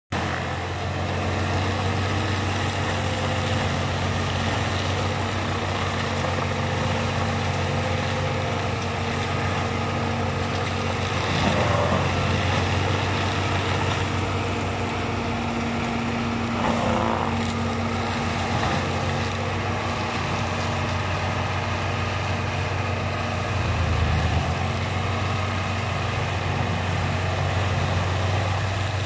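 John Deere 6190R tractor's six-cylinder diesel running steadily under load, powering a rear FAE hammer forestry mulcher shredding brush. The sound swells briefly twice partway through.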